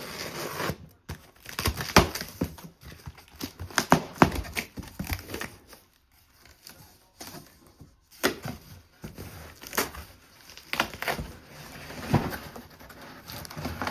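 Cardboard shipping box being opened and unpacked: cardboard and packing scraping and crinkling, with irregular knocks and thuds as the cabinet's parts are shifted and pulled out.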